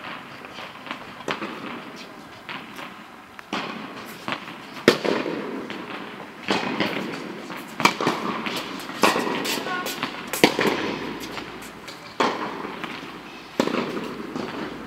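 Tennis rally: balls struck by rackets and bouncing, sharp pops about every one and a half seconds, each trailing off in an echo.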